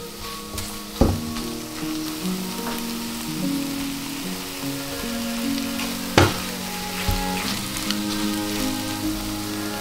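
Scrambled eggs sizzling in a non-stick frying pan as a spatula stirs them, with two sharp knocks against the pan, about a second in and again just past six seconds.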